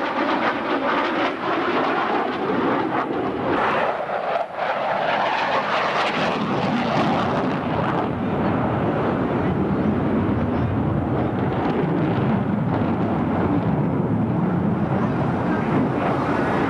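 Fighter jet flying a display pass overhead: loud, steady jet engine noise that starts suddenly and sinks deeper in pitch over the first several seconds as the aircraft goes by.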